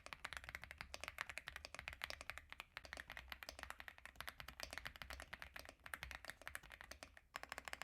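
Typing sound test on an Aula F75 gasket-mounted mechanical keyboard with Reaper switches: a steady, fast run of soft, creamy keystrokes. The typing pauses briefly near the end, then a few more keys are struck.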